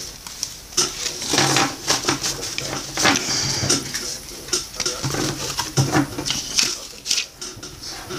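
Trading cards being handled and sorted on a tabletop: irregular rustling and quick light taps and clicks of cardboard cards being shuffled and set down.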